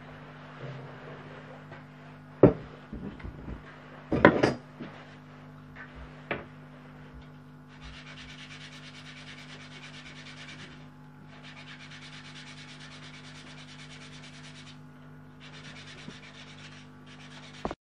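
Wooden parts of a handmade toy truck knocked twice on the workbench, then rubbed against wood in long stretches of fast, even scraping with short breaks. A low electrical hum runs steadily underneath.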